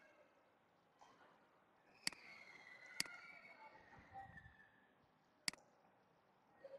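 Computer mouse clicking: four single sharp clicks at uneven intervals against near silence, with a faint wavering sound between the second and fourth clicks.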